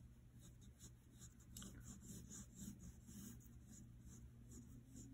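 Pencil faintly scratching on paper in a series of short, light sketching strokes.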